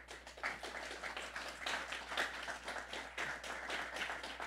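Audience applauding: many hands clapping together in a steady, fairly faint burst of applause.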